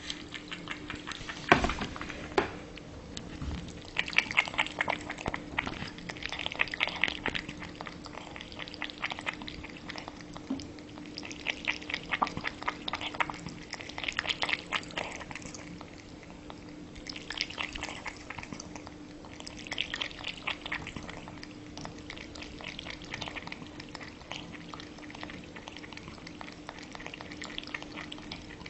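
A cat lapping water loudly: runs of rapid wet lapping clicks a few seconds long, with short pauses between them. A steady low hum runs underneath.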